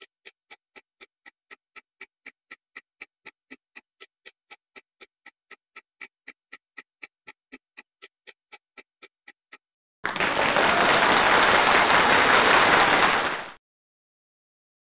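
Countdown timer sound effect: clock-like ticking, about four ticks a second, for nearly ten seconds. It is followed by a loud, even burst of noise about three and a half seconds long that cuts off suddenly, marking time up.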